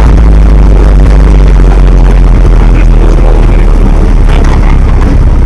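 GAZ-67 jeep's four-cylinder side-valve engine running steadily as the jeep drives along, heard from inside the open, roofless cab, with a loud low rumble throughout.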